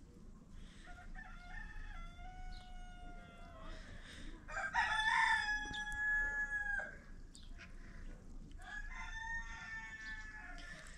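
Roosters crowing three times in long drawn-out calls, the middle crow the loudest.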